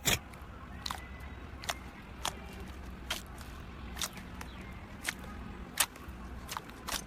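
Slime being pressed and poked, giving sharp little clicking pops about once or twice a second.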